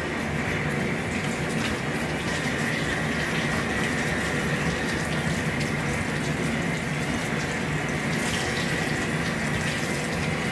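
Water pouring steadily out of the drain plugs of a closed RTIC cooler. The lid is still shut, and its airtight seal holds the water back by suction.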